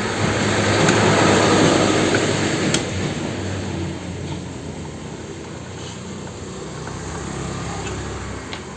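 A steady rushing mechanical noise with a low hum that swells over the first two seconds and then eases off, with a few faint clicks.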